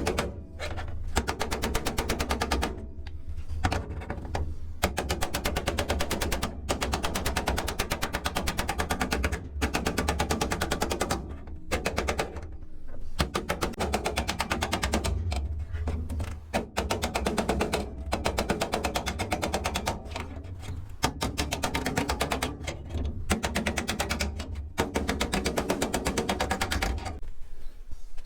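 A power tool working the sheet-metal package tray of a VW Beetle in runs of rapid, evenly spaced strokes. Each run lasts a few seconds and is followed by a short pause, over a steady low hum.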